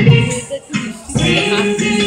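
Music accompanying a classical dance, with a repeating low beat; it drops away briefly about half a second in and comes back about a second in.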